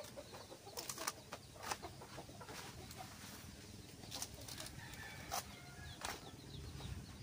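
Faint scattered light clicks and rustles, with small birds chirping now and then in the background.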